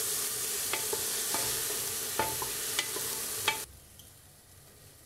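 Onion sizzling as it browns in hot olive oil in a pressure cooker pot, stirred with a utensil that clinks against the pot every half second to second. The sizzle cuts off abruptly about three and a half seconds in.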